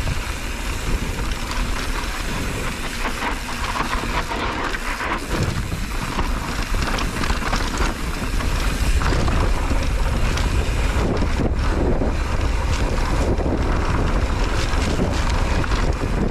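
Wind buffeting the camera microphone on a fast mountain-bike descent, with tyres crunching over loose dirt and the bike clattering over bumps. It grows a little louder about halfway through.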